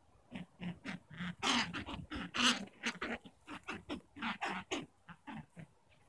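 Wild hares in white winter coat squaring off in a territorial fight, giving a quick run of short, gruff grunts, about three a second, loudest about two seconds in.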